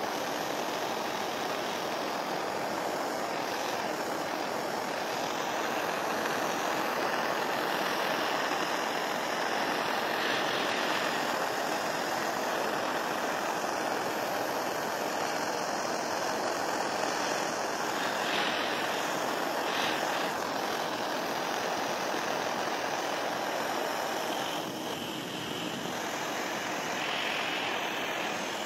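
Handheld gas torch burning with a steady hissing flame as it is played over a steel hatchet head.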